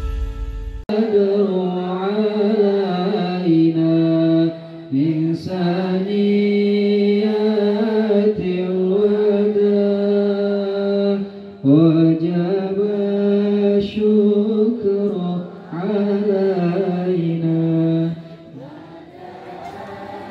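A solo voice chanting in long, held notes, phrase after phrase with short breaks between them, after background music cuts off less than a second in. The chant grows quieter near the end.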